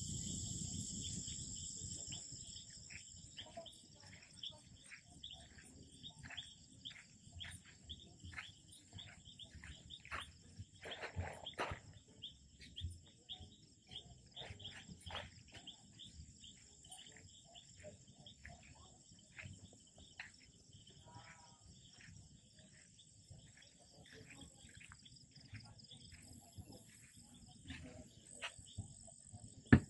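Night insects, crickets among them, chirping steadily in several high pitches, with scattered soft clicks and knocks throughout.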